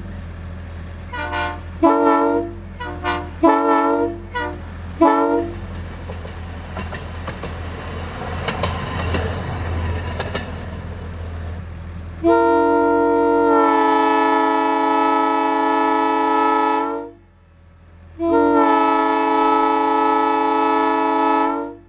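Multi-chime locomotive air horn: several short toots, then a few seconds of hissing, then two long blasts of a steady chord, the second starting about a second after the first cuts off. A steady low hum runs underneath.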